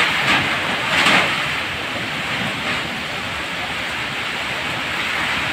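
Super typhoon wind and heavy rain, a steady rush of noise that swells in a stronger gust about a second in.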